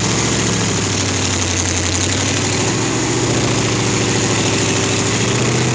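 1978 Jeep Cherokee's engine running steadily at low revs as the truck crawls slowly over rock ledges.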